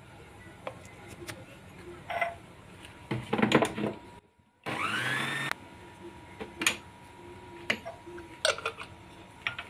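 Kitchen mixer grinder with a steel jar run briefly: the motor spins up with a rising whine and is cut off after under a second, blending raw mango and mint chutney with water added. Around it, the steel jar and its plastic lid clatter and knock on the counter.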